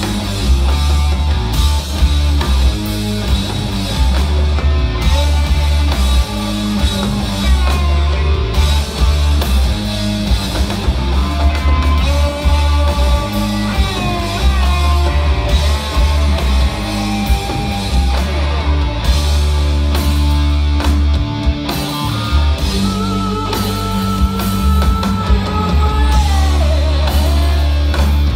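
Live rock band playing a heavy, '70s-style blues-rock intro: distorted electric guitars through Orange amps, bass guitar and drum kit driving a repeating riff. Lead lines bend up and down in pitch over it from about halfway through.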